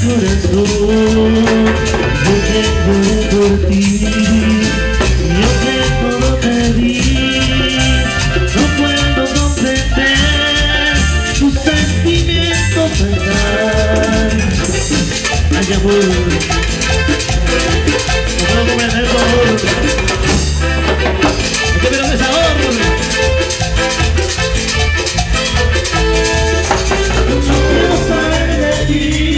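Live Latin dance band music, with a melody over a steady percussion beat.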